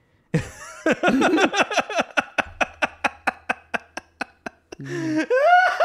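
Men laughing: a long run of quick, rhythmic ha-ha pulses that slowly fade, then a louder laugh with rising and falling pitch near the end.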